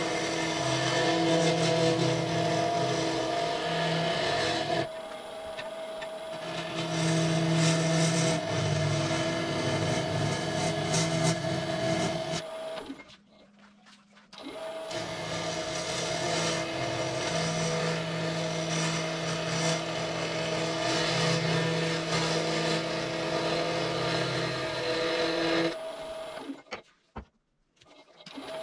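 Jet wood lathe running steadily, its motor hum carrying a hiss of the spinning cedar bowl being worked. The sound is in edited segments and drops out sharply twice, about halfway through and near the end.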